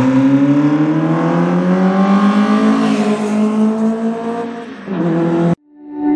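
Peugeot 205 rally car's engine accelerating hard, its note rising steadily for about three seconds, then fading as the car pulls away. The sound cuts off abruptly about five and a half seconds in.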